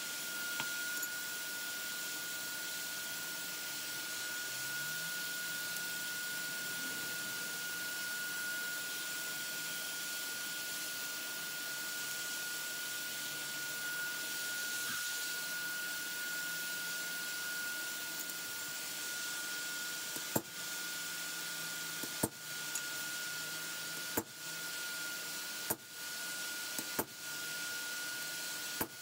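Hammer striking what looks like a chisel held on a steel lawnmower blade on an anvil: six sharp metallic blows, a second or two apart, starting about two-thirds of the way in. Beneath it, a steady hiss with a thin, high, steady whine.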